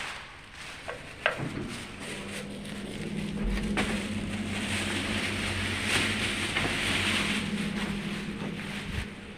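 Passenger elevator in motion: a clack about a second in, then a steady low motor hum with a rushing of air that fades out near the end as the car stops.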